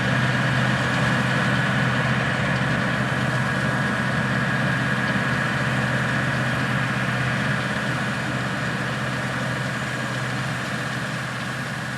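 Heavy diesel harvest machinery running steadily, a deep engine hum with a thin steady whine above it, slowly fading away.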